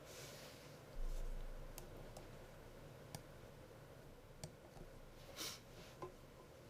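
Faint sharp plastic clicks and brief rustles as the small square inserts are pushed into a plastic ceiling air-conditioning grille, with a dull low thud about a second in.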